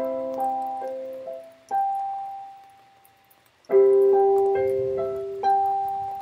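Piano-toned keyboard played slowly: struck chords with a few single notes between them, each ringing out and fading, the loudest chord about halfway through.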